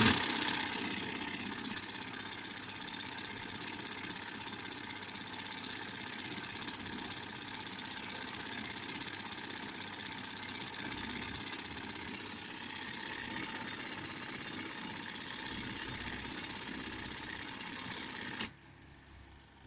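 IBM Model C electric typewriter's ribbon mechanism running steadily, winding the ink ribbon across from one cartridge to the other. It stops suddenly near the end.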